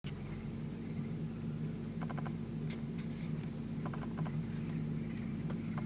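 Steady low motor hum, with two short runs of quick faint ticks about two and four seconds in.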